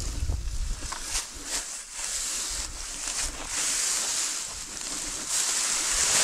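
Dry mown hay rustling and swishing in several long strokes as it is dragged and gathered with a long-handled wooden hay tool, with a few light knocks. Wind buffets the microphone as a low rumble near the start.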